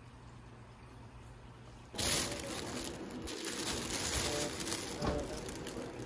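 Thin plastic carrier bag rustling and crinkling as hands pull it open, starting suddenly about two seconds in after a quiet stretch.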